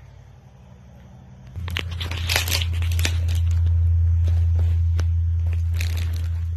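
Footsteps crunching and crackling over broken boards, plaster and rubble, with a loud steady low rumble underneath that starts suddenly about a second and a half in.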